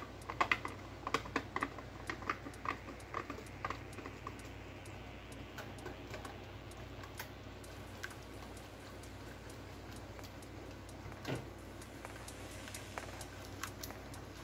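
A whisk beating egg yolks into lemon pie filling in a saucepan, its wires clicking and tapping against the pot. A quick run of louder taps comes first, then lighter steady clicking, with one louder knock about eleven seconds in.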